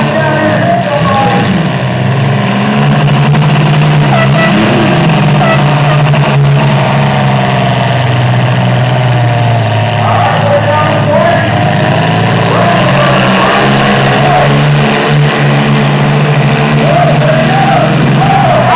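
Engines of several demolition derby mini pickup trucks running and revving together, a loud steady drone whose pitch wavers up and down.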